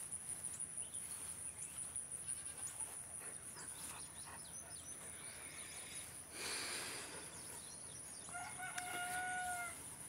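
An animal calling: a short harsh call about six seconds in, then near the end one clear call held on a steady pitch for over a second. A steady high-pitched drone runs underneath.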